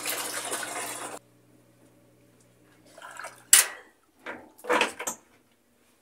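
Whirlpool top-load washing machine draining: the rush of water through its drain pump over a steady hum stops abruptly about a second in. The hum runs on until a sharp click about three and a half seconds in, followed by a few more clunks as the lid lock engages ahead of the spin.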